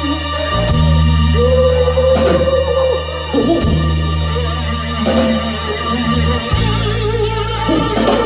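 Live rock band playing an instrumental passage: electric guitar with a long held, bending note, over keyboards, drums and low bass notes that change every few seconds.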